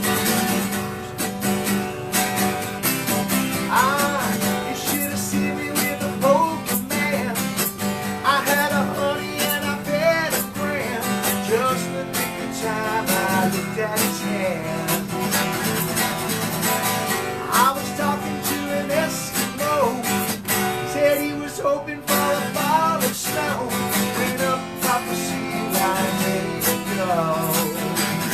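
Live music: an acoustic guitar strummed in a steady rhythm, with a melody line gliding above it.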